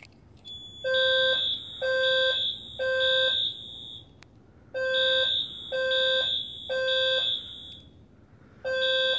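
Several fire alarm horns sounding together in the Code 3 temporal pattern: three half-second blasts, a pause, then three more, repeating, with a shrill high tone over lower horn tones. This is the evacuation signal of the whole system in alarm.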